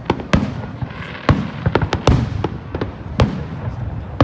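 Fireworks display: a rapid, irregular series of sharp bangs from bursting shells, several in quick succession in the middle, over a continuous low rumble.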